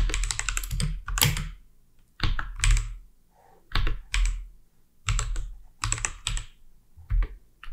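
Typing on a computer keyboard: quick runs of keystrokes in several bursts with short pauses between them.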